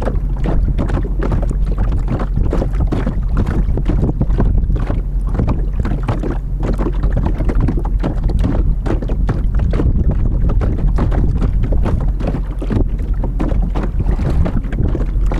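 Wind buffeting the microphone in a loud, irregular low rumble, with water lapping against the hull of a small open boat.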